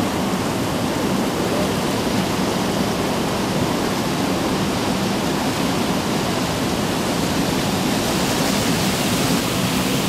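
A steady rush of river water pouring down a wooden chute into a round wooden washing tub and churning there into white foam: the water-powered tub that washes blankets without detergent.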